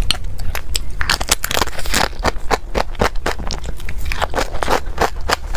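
Close-miked eating sounds: a person chewing a big mouthful, with many quick wet crackles and crunches, thickest about one to two seconds in.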